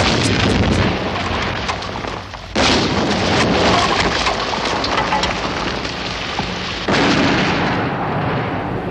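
Explosions blowing up a wooden seaside hut on stilts: three sudden blasts, at the start, about two and a half seconds in, and near seven seconds. Each is followed by a long rumbling, crackling wash of fire and debris that slowly fades.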